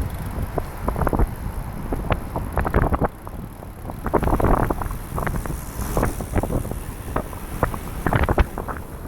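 Wind buffeting the microphone of a camera riding on a moving trike: a constant rough rumble, broken by many irregular short clicks and rattles.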